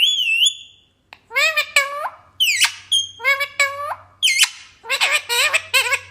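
Green parrot talking: a string of short, high-pitched, speech-like phrases in mimicked words, which the speech recogniser could not make out. A warbling whistle sounds at the very start.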